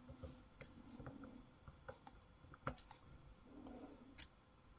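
Near silence broken by a handful of faint, scattered clicks from a plastic spudger against the opened iPhone XR's frame and parts. The clearest click comes a little past halfway.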